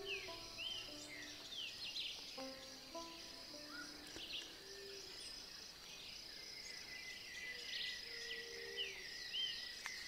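Quiet outdoor birdsong: many short chirps rising and falling over a steady high insect hum, with a slow melody of soft, separate notes underneath.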